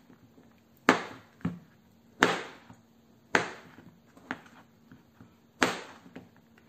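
Kitchen knife chopping through a block of soft traditional African black soap and striking a plastic cutting board: six sharp, unevenly spaced chops, four of them loud.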